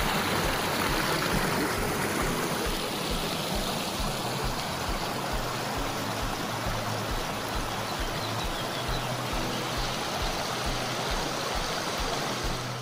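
Shallow creek water rushing and splashing over rocks in small cascades, a steady rush of running water that is loudest at the start and eases a little.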